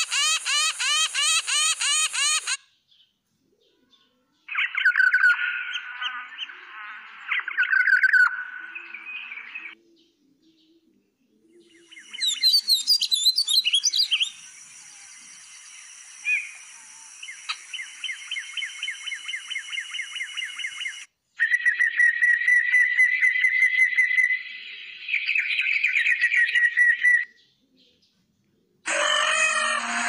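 Short bird-call recordings played one after another with brief silences between. A northern shrike's call, a rapid series of repeated notes, runs first, and a painted bunting's song is heard in the middle. A peacock's loud call starts just before the end.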